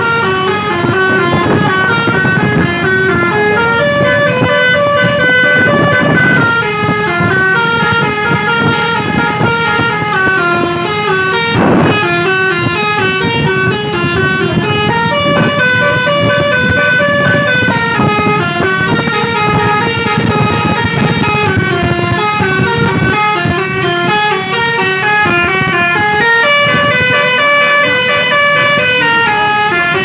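Indonesian bus 'telolet' multi-tone horn playing a long, unbroken tune of stepping notes, several horn tones sounding together. This is the 'mengular' (snake) style, where the melody winds on without pause.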